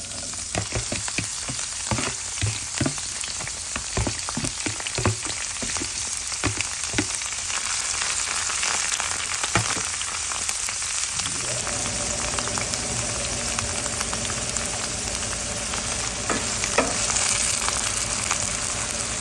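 Chopped onions, celery, scallion and cilantro sizzling in hot olive oil in a skillet, with a utensil clicking and scraping in the pan as they are stirred. A steady low hum joins about two-thirds of the way through.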